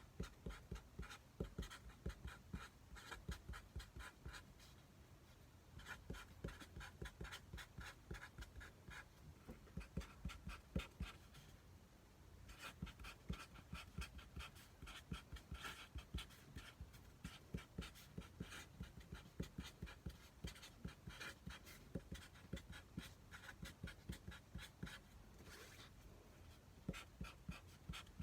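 A person chewing a mouthful of spicy stir-fried pork, soft wet chewing clicks at about three a second, stopping briefly twice.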